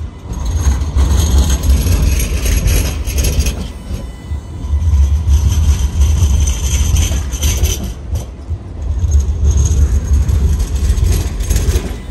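Alstom Citadis X05 light rail tram running past close by: a low rumble that swells and eases about three times, over a steady hiss of wheels on rail.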